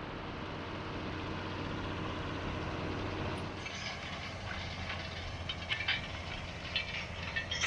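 Diesel engine of a John Deere 6530 Premium tractor running steadily with a low hum, with light clicking and rattling joining in about halfway through.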